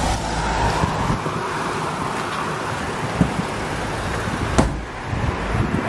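Outdoor vehicle noise, a car or truck running nearby, with wind and handling rumble on a hand-carried camera's microphone. Two short clicks come about three and four and a half seconds in.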